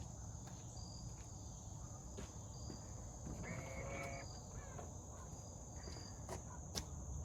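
Insects chirping outdoors: a steady high-pitched drone with short chirps repeating about twice a second. A brief faint pitched call comes in the middle, and a couple of light clicks come near the end.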